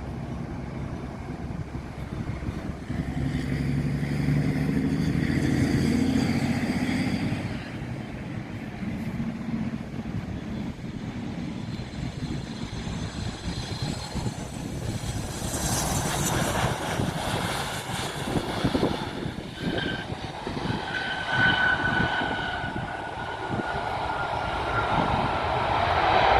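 Jet aircraft engines running: a low hum at first, then a surge with a high turbine whine, and near the end a whine that slowly falls in pitch.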